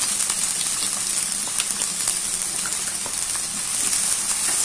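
Chopped onions and garlic sizzling in hot oil in a pan, a steady hiss with scattered small crackles. Near the end a spatula starts stirring them and the sizzle grows a little louder.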